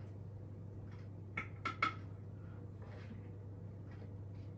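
Three quick clinks of dishes or cutlery close together about a second and a half in, with a few fainter knocks, over a steady low hum.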